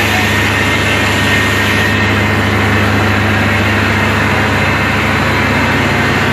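Fire truck engine running steadily at a constant speed, a loud, even low hum with broad noise over it.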